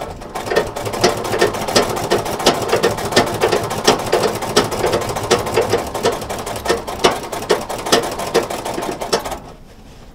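Sewing machine stitching denim, running with a rapid, even clicking and stopping shortly before the end.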